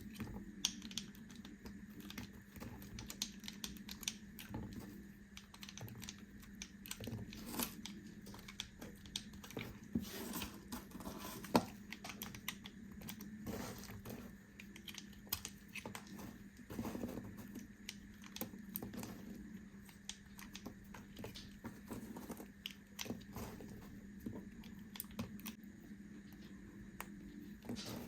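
Knife cutting through bars of soap: a continuous run of small crisp crunches and clicks, over a low steady hum.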